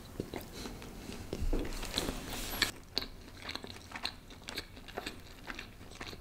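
Close-miked chewing of a bite of boneless chicken tikka: many short, irregular wet clicks from the mouth, a few louder ones about two to three seconds in.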